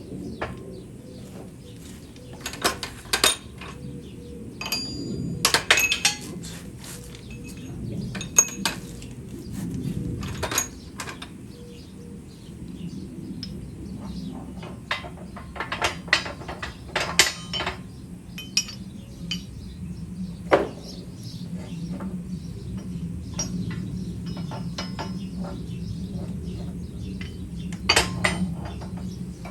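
Irregular metallic clinks and clanks, as of steel parts and tools being handled, over a steady low hum.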